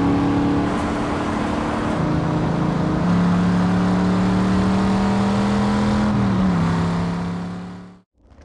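Classic Chevrolet Impala's engine running steadily, its pitch stepping up and down a few times, then fading out near the end.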